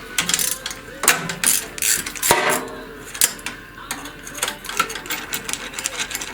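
Hand tools undoing the bolts of a walk-behind tractor's cylinder head: a ratchet wrench clicking in short bursts, with metal clinks of tools and bolts.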